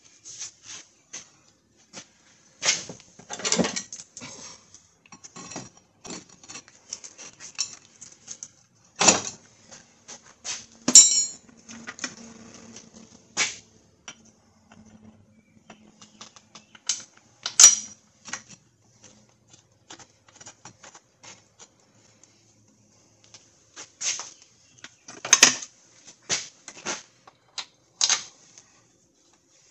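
Scattered metal clinks and knocks as a brake caliper and hand tools are handled and fitted back onto a car's front wheel hub, with one ringing metal strike partway through.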